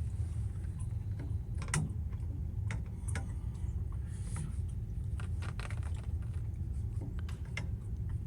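Scattered light clicks and taps of PEX tubing and fittings being handled and held up for measuring, over a steady low hum.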